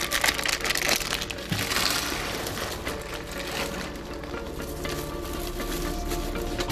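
Plastic cling film crinkling and crackling under gloved hands, densest in the first two seconds and then softer and more scattered.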